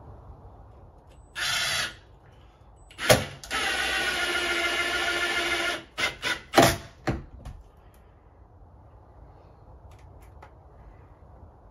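Power drill with a Torx bit driving screws through a door latch into the door jamb. It makes a short run about a second and a half in, then a longer steady run of about two seconds, followed by a few quick short bursts and knocks.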